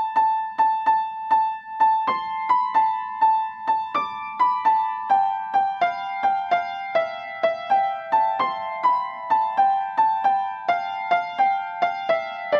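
Background music: a simple, high-pitched piano or keyboard melody of single notes at an even pace, about two to three notes a second.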